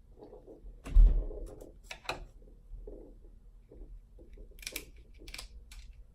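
Crab leg shells cracking and crunching as they are broken open to get at the meat: scattered sharp cracks, with a heavy thump about a second in.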